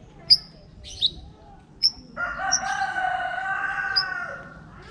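White-rumped shama calling: three sharp, high whistled notes about a second apart, then, about two seconds in, a long, lower, steady call lasting over two seconds.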